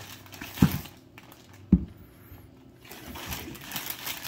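Plastic bag of potatoes rustling as a hand digs through it, with two dull knocks about a second apart as potatoes are set down on the table.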